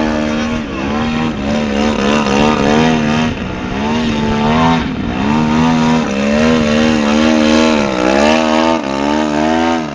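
Engine and propeller of a 42%-scale RC aerobatic plane, a large two-stroke petrol engine, running loud under constant throttle changes as the plane hovers and tumbles. Its pitch rises and falls every second or two.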